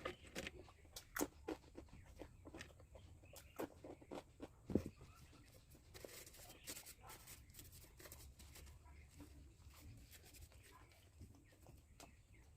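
Faint eating sounds: soft clicks and smacks of chewing. They are thickest in the first five seconds, with a sharper click just before the five-second mark.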